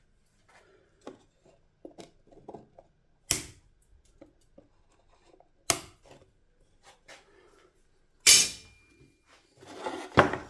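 Tools and parts being handled on a workbench during assembly: scattered small clicks and knocks, with three sharp loud snaps or knocks a couple of seconds apart, the last one ringing briefly, then a short rustle or scrape near the end.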